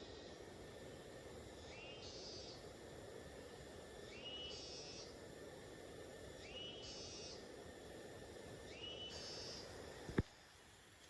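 An animal calling over and over, about every two and a half seconds, four times: each call a quick rising note running into a held high buzzy note, over a steady hiss. A single sharp click comes near the end, after which the hiss drops away.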